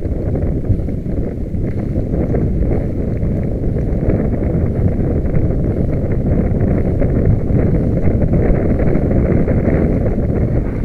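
Wind buffeting the microphone: a continuous, uneven low rumble with no engine tone in it.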